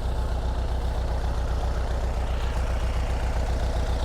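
Engine of a 4x4 vehicle running steadily with an even, deep low throb.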